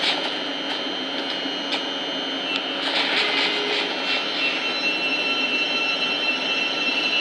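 Thameslink Class 700 electric multiple unit pulling away from the platform: a steady running noise with a high whine, and a few sharp clicks in the first couple of seconds.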